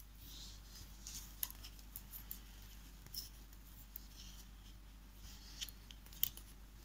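Faint, irregular clicks of metal double-pointed knitting needles tapping together as stitches are worked.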